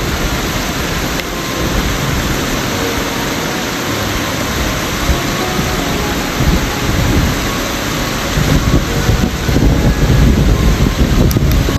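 Waterfall close by, a loud steady rush of falling water that grows louder near the end.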